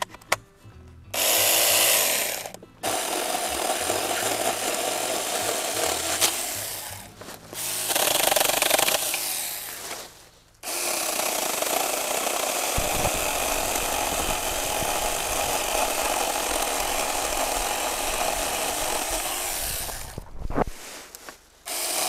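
Power saw cutting through firewood logs in several long runs of steady cutting noise. It stops briefly between cuts, and the longest cut lasts about ten seconds.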